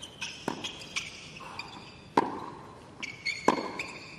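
Tennis ball struck by rackets in a baseline rally on a hard court: three sharp hits about a second and a half apart, with softer ball bounces between them and short high squeaks of shoes on the court.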